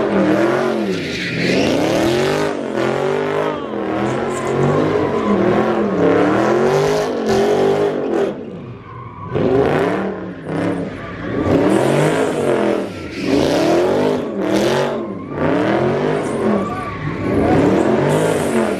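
Dodge Charger doing donuts, its engine revving up and down over and over, about once every second or two, with tire squeal underneath. The revs drop off briefly about halfway through.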